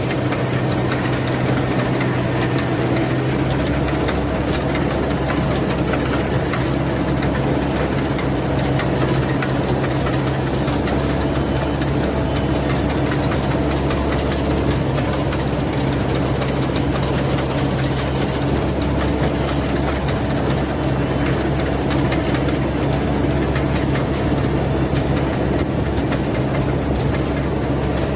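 Rice combine harvester running steadily: an engine hum with a broad mechanical rush over it, and a deeper rumble that strengthens a few seconds in.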